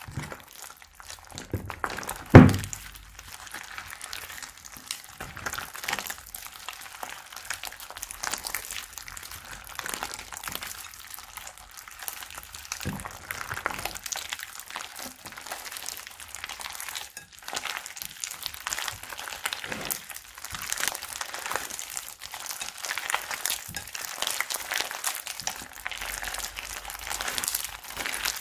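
Slime being squeezed and worked by hand, a continuous crackle of tiny pops and crinkles, with one sharp thump about two seconds in and a lighter one around thirteen seconds.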